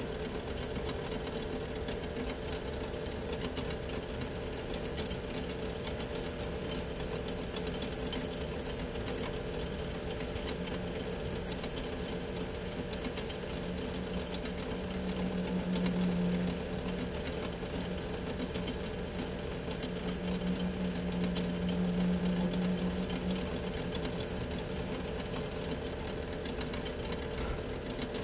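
Metal lathe running steadily while a boring tool cuts the bolt-nose recess in a threaded rifle barrel tenon. A hiss of cutting comes in about 4 seconds in and stops a couple of seconds before the end, and a low hum swells twice in the middle while the tool is deepest in the cut.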